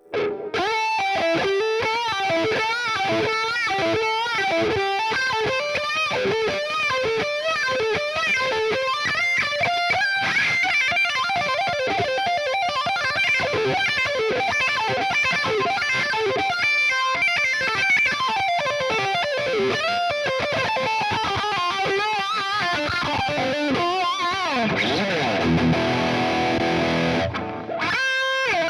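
Ibanez S320 electric guitar, refitted with DiMarzio pickups, playing fast single-note lead lines as a tone demo. There is a long downward pitch glide near the end.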